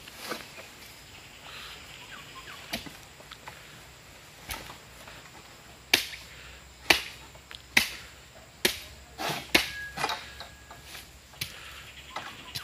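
Long-pole oil palm sickle (egrek) being pulled against a frond stalk high in the palm: a series of sharp, irregular cracks and knocks as the blade bites, coming closer together and louder in the second half.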